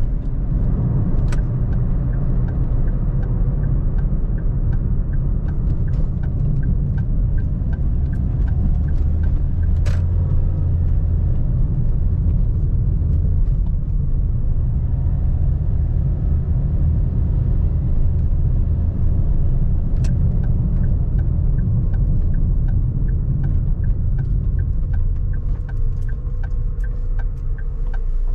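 A car driving along a road, with a steady low rumble of tyres and engine. Over the rumble runs a faint, evenly spaced ticking, and a few sharp clicks come through.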